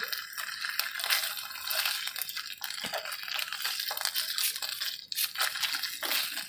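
Food frying in hot oil: a steady sizzle with dense crackling.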